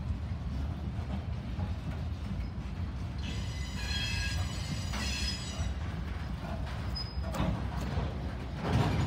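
Freight train cars rolling slowly past with a steady low rumble; from about three to five seconds in, steel wheels squeal on the rails in a cluster of high ringing tones. A short, louder noise comes near the end.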